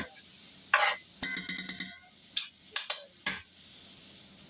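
Onions sizzling steadily in hot oil in a frying pan, with a few knocks and, about a second in, a brief rapid rattle with ringing tones.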